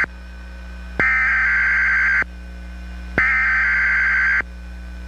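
Emergency Alert System SAME header: harsh, buzzy digital data bursts about a second long with about a second between them. The tail of one burst is followed by two full bursts, over a steady low hum.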